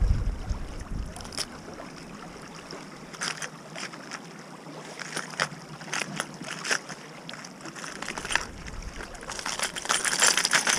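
Lures and their hooks clicking and rattling in a clear plastic tackle box as they are sorted by hand, in scattered clicks that crowd together near the end, over the steady rush of a shallow river.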